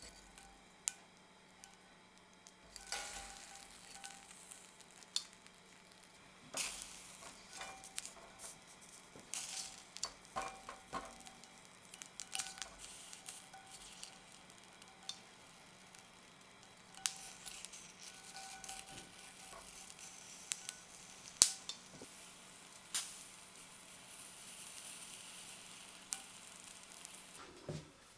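Corn cobs sizzling in a hot frying pan, the sizzle swelling in short spells, while metal tongs click and scrape against the pan as the cobs are turned. A sharp clack of the tongs late on is the loudest sound.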